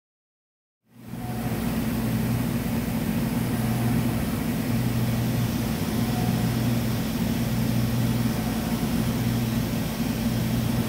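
2006 DMG DMU 100P Duo Block 5-axis CNC vertical mill running, a steady mechanical hum with a low drone that starts about a second in after silence.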